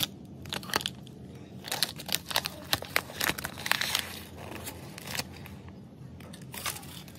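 Clear protective plastic film crinkling as it is peeled and pulled off a new scooter's body panel. It gives a run of sharp crackles, thickest in the middle.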